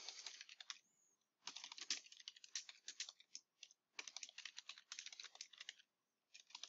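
Faint computer keyboard typing: quick runs of keystrokes broken by short pauses, about a second in and again near four seconds and near the end.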